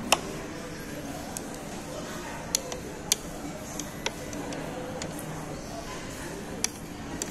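Porcelain spoon and chopsticks clinking and tapping against a ceramic plate, several sharp irregular clicks with the loudest right at the start, over a steady murmur of restaurant chatter.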